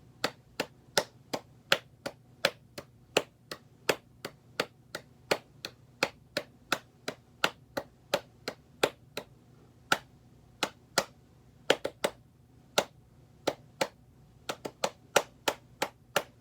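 Hand clapping a song's rhythm in 4/4 time: a repeating pattern of sharp claps, about two to three a second, with a few short pauses between phrases.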